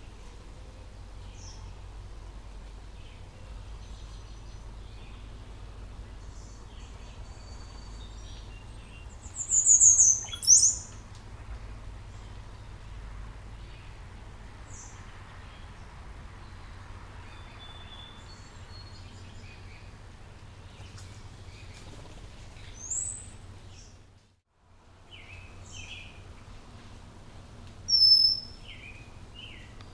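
Small birds chirping and calling at intervals, with a few loud high chirps about ten seconds in and again near the end, over a steady low hum.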